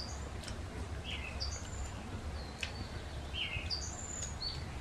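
A small bird chirping repeatedly in the background: short notes, a lower and a higher one, about every second. Under it runs a steady low hum, with a few faint clicks.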